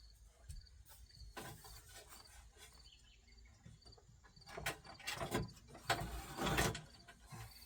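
Small clicks, rattles and rustles of a car radio and its wiring plugs being handled, busiest in the second half. Behind them runs a faint, evenly repeating high chirp of crickets.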